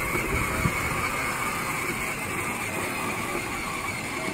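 Battery-powered ride-on toy Mustang driving across grass: its electric motors and gearbox give a steady, even whine over the rustle of the plastic wheels.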